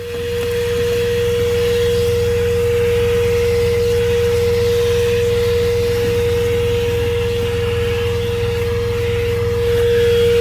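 THISWORX 12-volt handheld car vacuum running, a steady motor whine over rushing air as it vacuums the cab, with the truck's engine idling underneath.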